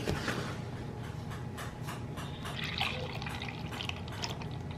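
Liquid sounds: irregular splashing and dripping with small clicks.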